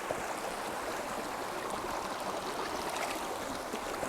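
Stream water running steadily while a soft filter bottle is dunked in it and fills, with a slight swell of gurgling partway through.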